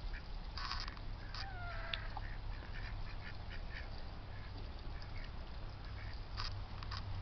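Ducks quacking in short, scattered calls, with one longer call that falls in pitch about a second and a half in, over a steady low hum. The birds are raising a fuss.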